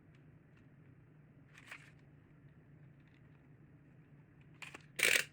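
Small packaged trinkets being handled: a faint rustle about two seconds in, then a loud, sudden rustle and clatter near the end, over a low steady room hum.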